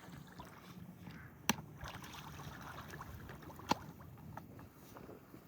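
Two sharp knocks, about two seconds apart, over a faint steady outdoor noise bed.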